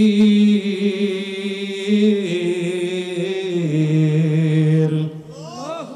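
A man chanting in a drawn-out melodic line through a microphone, the voice of a waz preacher's sung delivery. He holds long notes, steps the pitch down twice, and trails off about five seconds in.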